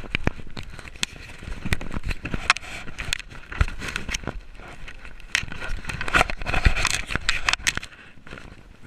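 Fingers handling a small action camera, rubbing and tapping on its housing: an irregular run of sharp clicks, knocks and scraping right on the microphone, easing off near the end.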